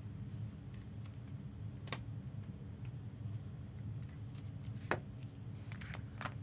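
Trading cards being handled and flipped through: soft sliding and rustling of card stock, with two sharp clicks about two and five seconds in, over a steady low hum.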